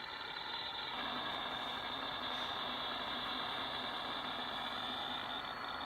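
An unidentified signal heard through a CB radio receiver tuned to 27.155 MHz (channel 16): a steady, dense, rapid crackling buzz that sounds like a demented Geiger counter. It stops abruptly above about 4 kHz, at the edge of the radio's audio.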